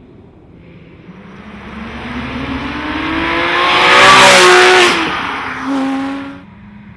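Porsche 997 GT3 RS flat-six through a SharkWerks aftermarket exhaust, revving up hard with its note climbing steadily in pitch and loudness, loudest about four seconds in. It then drops away, surges briefly once more and falls back to a low, steady note near the end.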